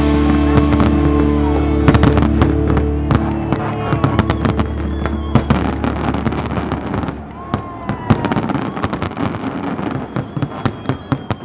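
Fireworks going off: a rapid run of sharp bangs and crackles. A held music chord sounds over them at first and fades out after a few seconds.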